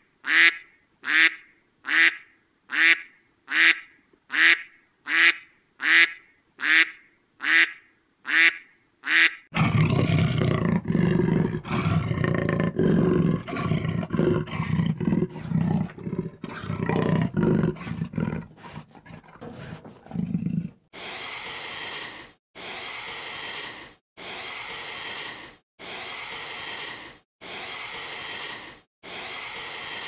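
A series of animal sounds. First comes a run of short calls repeated about once a second, then about ten seconds of a deep, rough call, then a regular series of hissing breaths about once a second.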